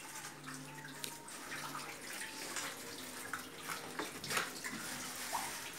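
Water running and splashing in a small tiled bathroom, with a few sharp knocks, the clearest about four seconds in.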